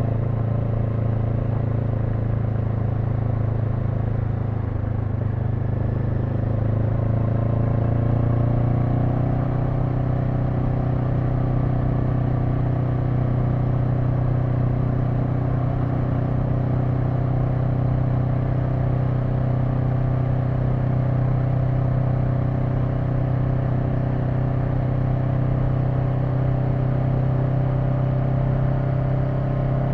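Honda NX500's 471 cc parallel-twin engine running steadily on the move. The pitch rises a little about a quarter of the way through as it picks up speed, then holds steady.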